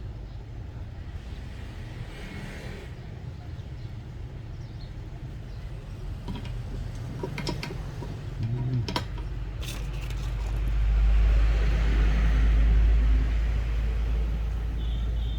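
Steady low background hum with a few light clicks. About ten seconds in a louder low rumble swells up, then eases off near the end.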